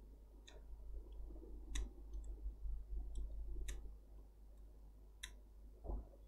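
Faint computer keyboard typing: scattered sharp key clicks, about seven in five seconds, over a low steady hum, with a soft thump near the end.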